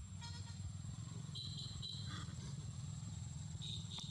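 A few short, high-pitched animal calls, one after another, over a low steady rumble.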